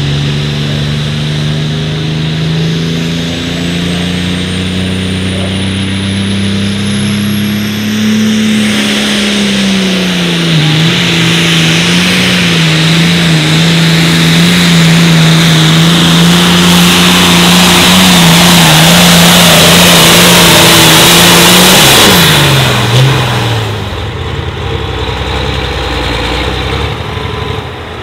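Turbocharged diesel engine of a Super Farm pulling tractor revving up, with a high whistle climbing over it. About ten seconds in the pitch dips as it takes the load, and it runs at full power, growing louder, for some twelve seconds. Near the end it is throttled off and falls quickly to a low idle.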